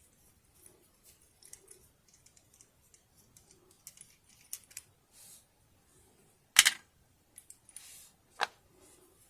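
Small metallic clicks and ticks of an Abus 88/40 Plus disc detainer padlock and tools being handled while it is taken apart, with two sharper clicks, one a little past halfway and one near the end.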